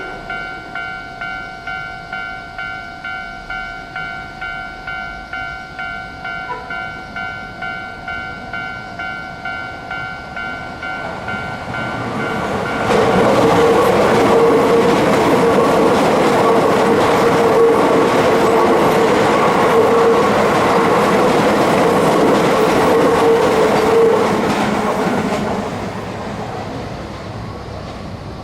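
Japanese level-crossing warning bell ringing, about two rings a second, then a Keio Line electric train passes through the crossing for about twelve seconds, its wheels clattering over the rail joints with a steady tone under the noise, before dying away near the end.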